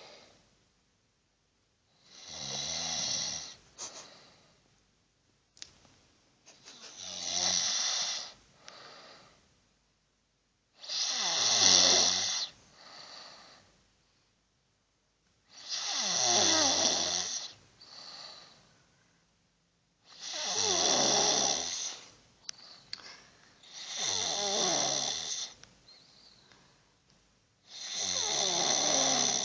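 A sleeping person snoring heavily, seven loud snores about four seconds apart, each lasting about two seconds and often followed by a shorter, softer breath.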